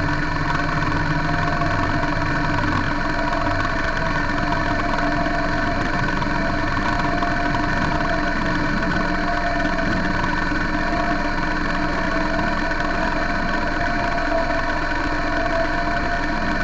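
Thunder Tiger RC model submarine's electric drive motor running at a steady speed, heard from a camera inside the hull: a continuous mechanical hum with several fixed tones.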